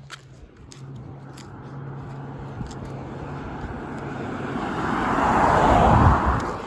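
A car approaching and driving past, its tyre and engine noise swelling steadily, peaking about six seconds in and falling away just after. No horn sounds.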